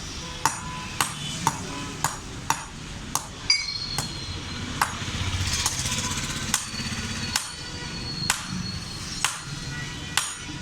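Blacksmith's hammer striking iron on an anvil while forging a sickle blade: sharp ringing metal strikes, roughly one to two a second, over a low steady hum.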